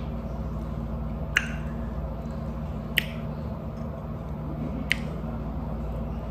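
Wet mouth smacks from someone eating a snack close to the microphone, three sharp clicks about a second and a half apart, over a steady low hum.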